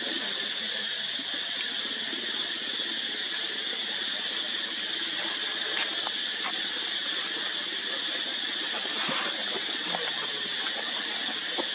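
Steady high-pitched insect chorus, an unbroken drone, with a few faint clicks.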